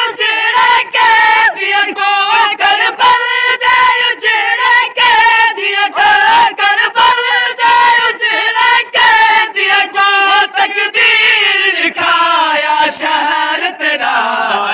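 Voices chanting a noha, a Shia mourning lament, singing the same short melodic refrain over and over, with sharp strokes beating about twice a second.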